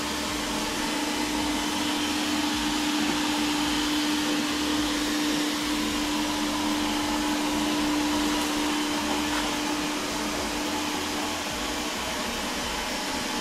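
360 S6 robot vacuum cleaner running steadily as it drives across the floor, a steady whir from its suction fan and brushes. A low steady tone runs under the whir and fades out shortly before the end.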